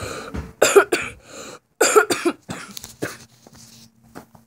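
A person coughing several times in short, loud bursts, some in quick pairs.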